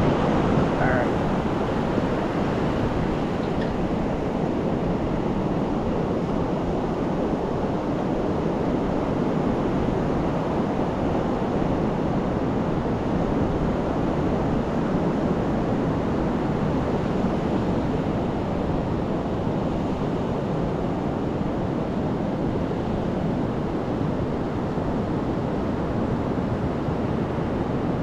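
Pacific surf breaking and washing up a sand beach: a steady, unbroken rush of waves.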